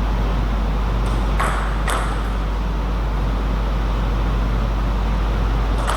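Celluloid-type table tennis ball clicking twice, about half a second apart, roughly a second and a half in, with another click near the end, over a steady hum and hiss.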